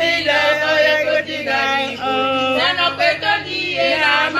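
Women singing together in long held notes.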